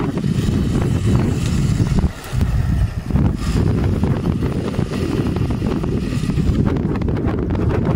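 Wind buffeting the microphone: a loud, steady low rumble that dips briefly about two seconds in.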